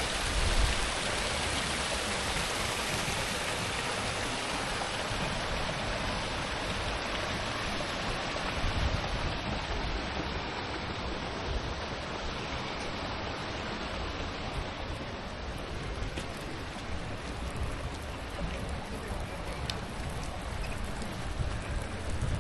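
Rainwater runoff rushing steadily down a channel that carries water from the mountains to the sea, running after heavy rain; the hiss thins a little from about halfway through.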